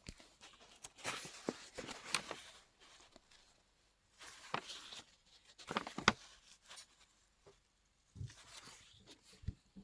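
Scattered rustling and light clicks and knocks from small objects being handled, with a sharper click about six seconds in.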